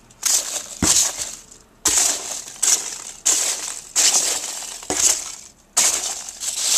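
Hands rummaging through the packing material of a shipping box, crinkling and crushing it in a string of loud noisy bursts about once a second.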